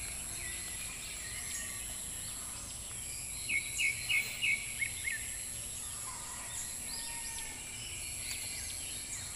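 Outdoor ambience of a steady high-pitched insect drone, with a bird giving a quick run of about six short chirps in the middle and fainter chirps later on.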